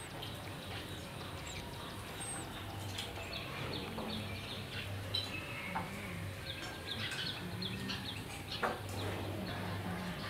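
Small birds chirping: many short, quick, high chirps scattered throughout, over a steady low hum.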